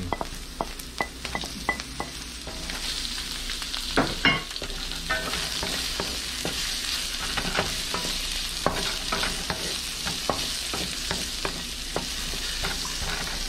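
Sliced onion and ginger sizzling in hot oil in a wide metal pan, with a wooden spatula scraping and tapping against the pan as they are stirred. The sizzle builds a few seconds in as the freshly added onion heats up.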